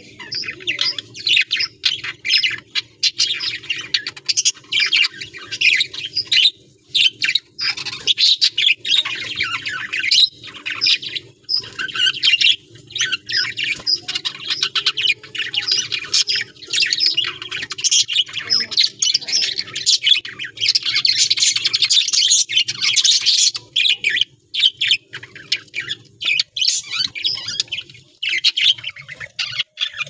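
A flock of budgerigars chattering: dense, rapid high chirps and calls with no break.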